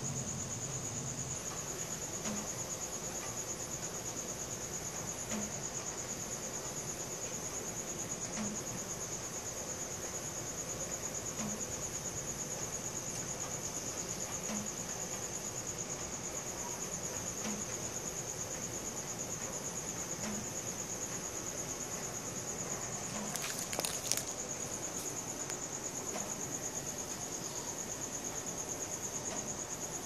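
Crickets chirring at night in one unbroken, high-pitched trill. A short burst of noise cuts in briefly about 23 seconds in.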